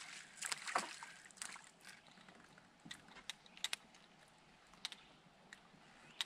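A small hooked panfish reeled to the boat and lifted out of the water. A quick flurry of splashes and knocks comes about a second in, then scattered sharp clicks and taps as the fish is swung aboard and handled.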